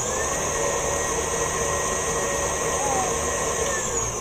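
KitchenAid Artisan stand mixer running with a steady high motor whine. The pitch rises as it speeds up at the start and drops back as it slows near the end.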